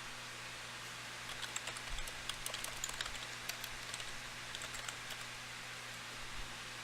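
Typing on a computer keyboard: a quick, irregular run of keystrokes for a few seconds, over a steady background hiss.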